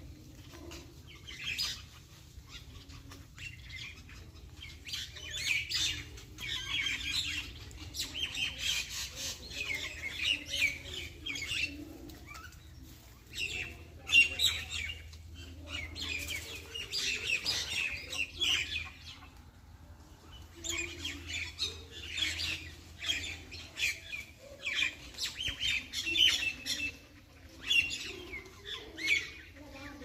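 Munia chirping: rapid high chirps in busy bursts of several seconds, broken by brief lulls.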